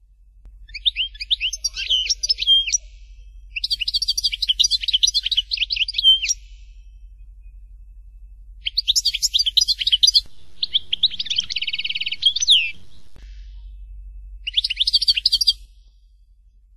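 European goldfinch singing in five bursts of quick high notes, with a buzzy trill about two-thirds of the way through.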